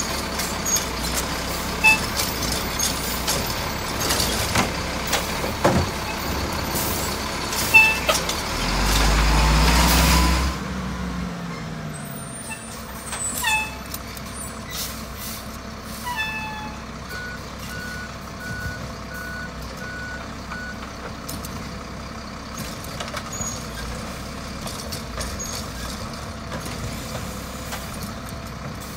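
Diesel garbage truck working: engine running amid clanks and rattles, with a loud rev that rises and falls about a third of the way in. After it the sound drops back to a steadier running, and a series of evenly spaced backup beeps sounds a little past halfway.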